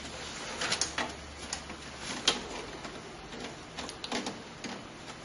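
Scattered small clicks and rattles of parts and cables being handled inside a desktop PC case.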